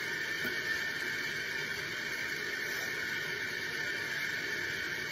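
Steady engine and rushing-air noise inside a military transport aircraft's cabin in flight, with the jump door open: an even, constant rush.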